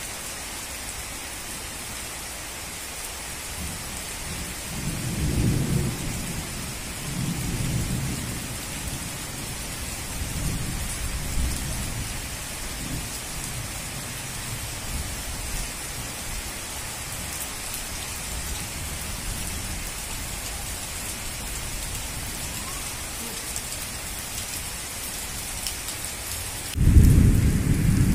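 Heavy rain falling with a steady hiss, broken by several low rolling rumbles of thunder. The loudest rumble comes near the end.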